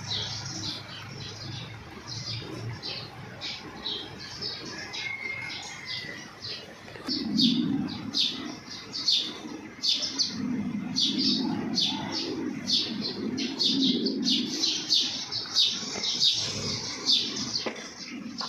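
Small birds chirping in quick, short, high notes, several a second, with low muffled sounds underneath from about seven seconds in.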